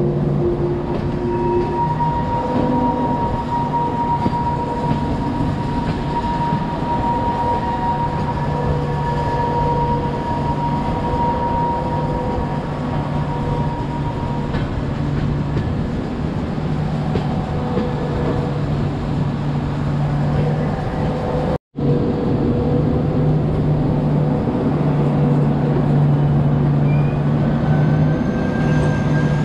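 Moving express train: a steady running rumble from the coaches with sustained humming tones over it. The sound drops out for an instant about two-thirds of the way through.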